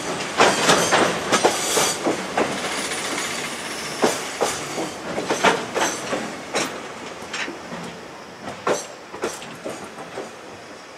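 Container wagons of a freight train rolling past, steel wheels clicking over rail joints with a rushing rolling noise and a little wheel squeal. The clicks thin out and grow fainter as the last wagons go by.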